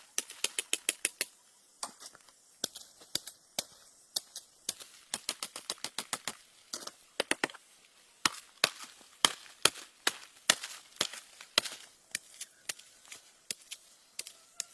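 A long run of short, sharp knocks or taps, irregular and often several a second, with brief pauses between runs, like a blade or stick striking something hard again and again.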